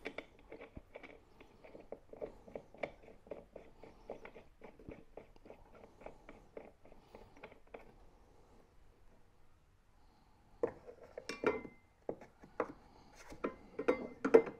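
Blade bolt being threaded by hand onto a lawnmower's blade hub, making a run of light, quick metal ticks. After a short pause, louder scattered metallic clinks as tools are set against the steel blade near the end.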